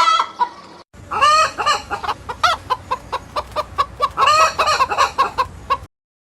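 Chickens clucking, with several short sharp clucks and longer squawking calls about a second in and again around four seconds. A brief break just before a second in, and the sound cuts off abruptly a little before the end.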